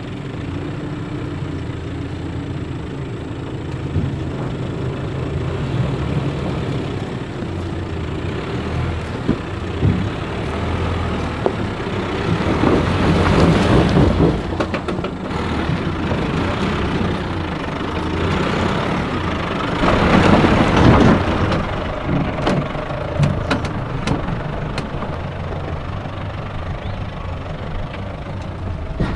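Nissan Navara's engine working at low speed up a rocky, rutted climb, with two louder stretches of throttle about halfway through and again about two-thirds through, and a few sharp knocks after that.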